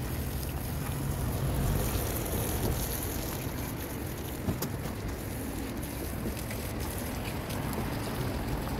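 Steady outdoor background noise: wind on the microphone with a low rumble, and a few faint ticks about halfway through.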